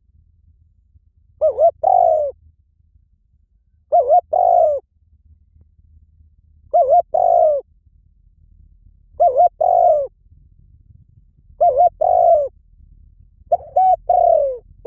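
A spotted dove cooing: six repeated phrases about two and a half seconds apart, each a quick double coo followed by a longer coo that falls away at the end.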